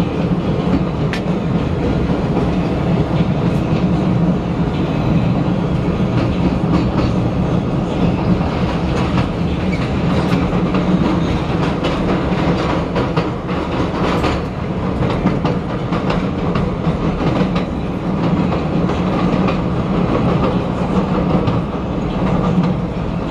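A 1992 Morrison-Knudsen 3200-series CTA rail car with GE traction motors running at speed, heard from inside the car: a steady, loud rumble of motors and wheels on rail, with scattered clicks from the rail joints.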